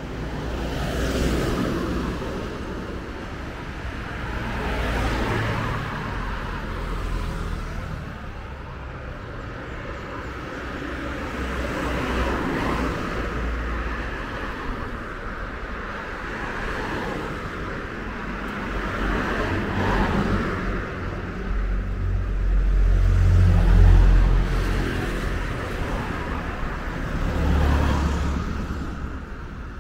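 Road traffic: vehicles passing one after another, each swelling up and fading over a few seconds. The loudest, about two-thirds through, has a heavy low rumble.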